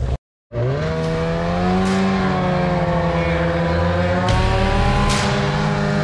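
Snowmobile engine running steadily after a brief cut; its pitch rises slightly at first, then holds even. Short hissing bursts come through a few times.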